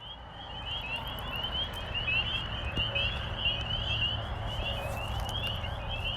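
A dense chorus of many small animals calling: short, high, rising chirps overlapping without pause, over a low steady rumble.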